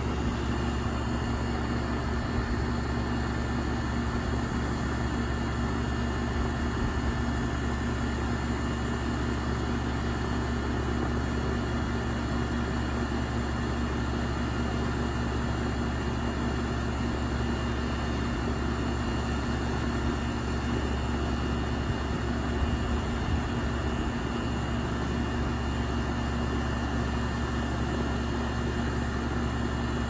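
2001 York central air conditioner's outdoor condensing unit running: the condenser fan turning and the compressor running, a steady hum with a low drone underneath.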